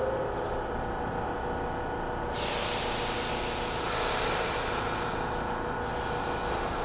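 NYC subway car standing at the platform with its doors closing, its equipment giving a steady hum. About two seconds in, a loud steady hiss of air starts and cuts off a few seconds later, typical of the air brakes releasing just before departure.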